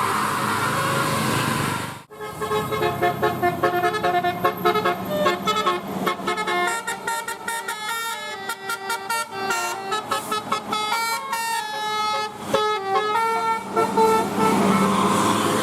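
Bus telolet horn playing a fast melody of short stepped notes, starting about two seconds in after a sudden cut and running until near the end. Before and after it, a noisy stretch of street sound.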